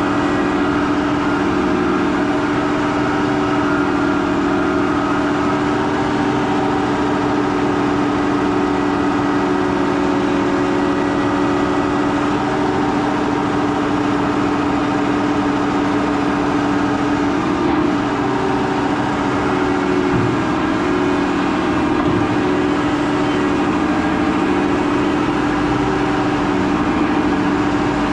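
Case IH Quadtrac 580 tractor's engine running steadily while it pulls a 14-furrow plough, a constant low hum with no change in speed.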